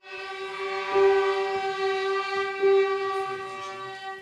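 Violin ensemble sustaining one long bowed note together, swelling louder about a second in and again near the middle, then stopping.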